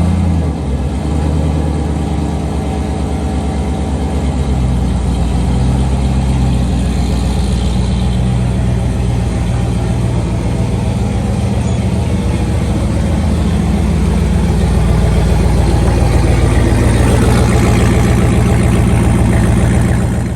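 A car engine, started just before, running loud and steady at idle with a deep rumble that grows a little louder about two-thirds of the way through.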